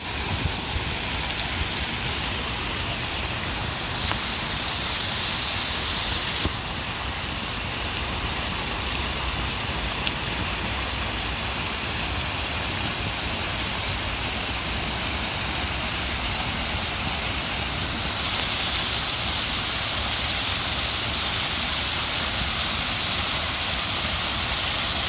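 Water pouring over small stone cascades into a pool, a steady splashing rush. It turns brighter and hissier from about 4 to 6 seconds in, and again from about 18 seconds on.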